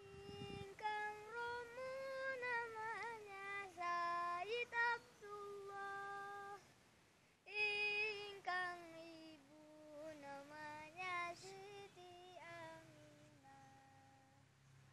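A boy singing solo and unaccompanied, holding long notes that bend and turn in ornaments, with a short pause about halfway through.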